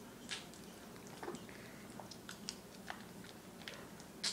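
Faint chewing and mouth sounds of a person eating, with scattered soft clicks.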